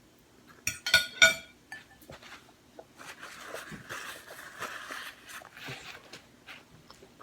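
Eating at a table: a few sharp clinks of a plate or cutlery about a second in, then several seconds of chewing on a taco.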